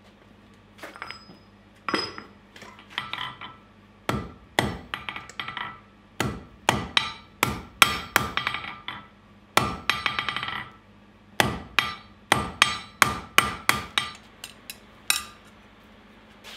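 Hand hammer forging hot steel on an anvil: bursts of sharp blows, about two to three a second, each leaving a short metallic ring from the anvil, with brief pauses between bursts.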